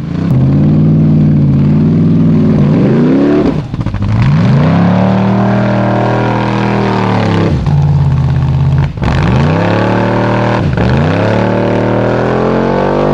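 Formula Offroad street-legal-class off-road vehicle's engine running at high revs under hard throttle, its pitch swinging up and down and dipping sharply about four times before climbing again.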